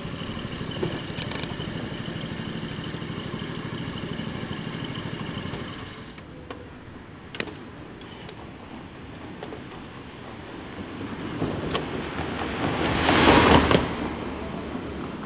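Motor scooter engine running as it pulls up and stops, going quiet about six seconds in. Near the end, a rush of noise swells and fades quickly.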